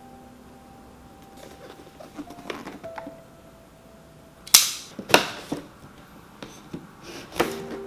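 Cardboard figure box handled and turned on a wooden tabletop: faint rustling, then two sharp knocks about half a second apart a little past halfway as the box is set down, and another knock near the end.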